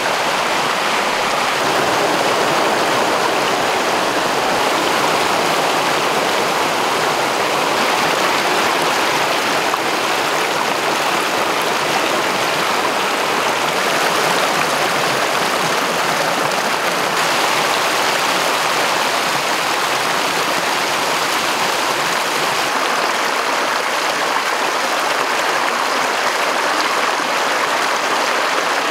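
Rocky stream rushing over small cascades: a steady, even rush of water.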